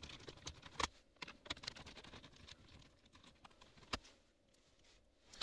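Scattered light clicks and ticks of a T20 Torx screwdriver turning out screws in the plastic centre console, with a sharper click a little under a second in and another about four seconds in.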